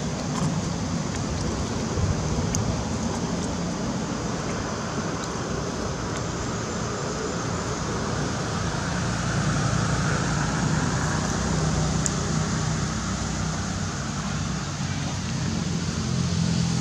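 Steady outdoor background noise: a low, ragged rumble under an even hiss, with a few faint clicks.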